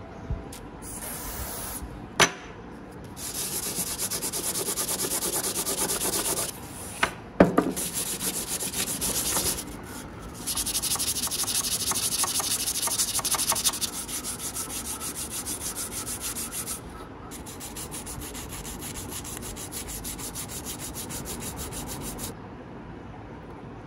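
Sandpaper rubbed by hand over a forged steel shuriken in rapid back-and-forth strokes, polishing the blades; it pauses briefly a few times. There are two sharp knocks, about 2 and 7 seconds in, and the rubbing stops near the end.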